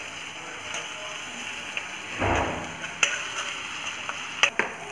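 Grated onion, green chilli and crushed ginger-garlic sizzling in oil in a wok, stirred with a metal spoon that scrapes and clicks against the pan a few times, with one heavier scrape a little before halfway.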